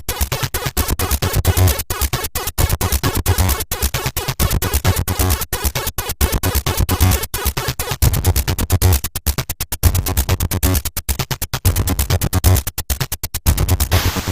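Electronic music: dense, buzzing synth sounds chopped into rapid stutters by many sharp cut-offs, over a deep bass that drops in and out in blocks.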